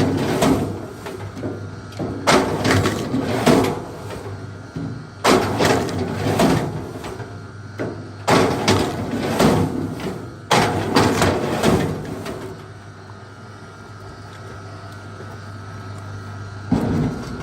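A series of heavy axe blows into big logs, each a sharp impact with cracking wood trailing after it, coming every second or two until about twelve seconds in, with one more blow near the end. A faint steady hum runs underneath.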